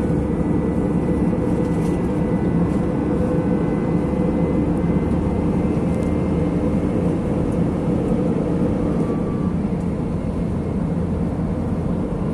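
Airliner cabin noise in flight: the steady, even drone of the engines and airflow, low and dense, with a faint thin whine above it.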